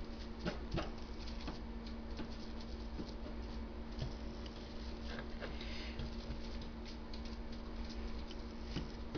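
Foam sponge brush dabbing acrylic paint onto wax paper: light, irregular taps and rustles, over a steady low hum.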